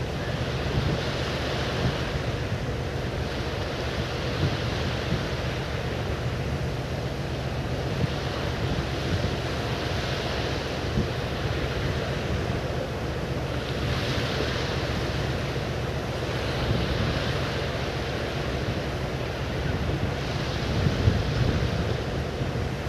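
Wind buffeting the microphone over a continuous rush of surf, the washing sound swelling and easing every few seconds.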